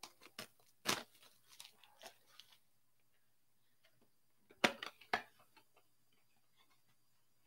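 Cardboard trading-card blaster box being handled and torn open by hand: short sharp cardboard snaps and rips, a loud one about a second in and another cluster near the middle, with quiet between.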